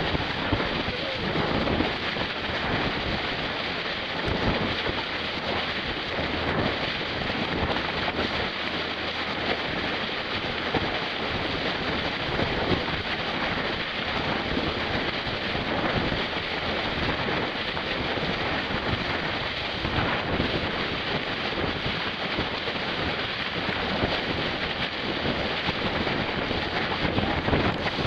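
Wind buffeting the microphone over sea water rushing and splashing along the hull of a moving boat: a steady rushing noise with small surges.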